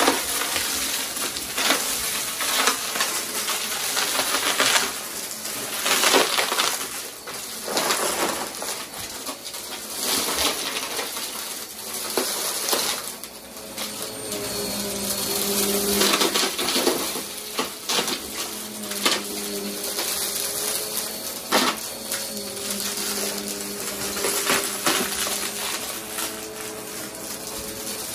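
Upright bagless vacuum cleaner running over carpet and sucking up loose coins and small debris, which rattle and clatter up through the nozzle into the dust bin in a constant stream of clinks and crunches.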